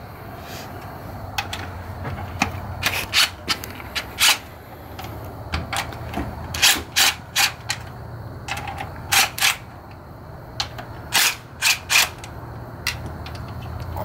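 A cordless impact driver spinning out the valve cover bolts on a Nissan 240SX engine, in about fifteen short runs, often two or three close together, over a steady low hum.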